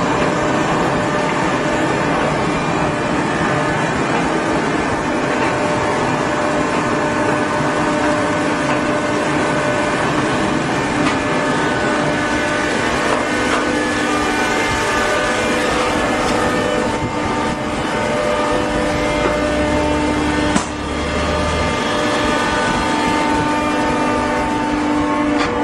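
Hydraulic cardboard baler running: a steady mechanical drone with a constant hum, and one sharp clank about twenty seconds in.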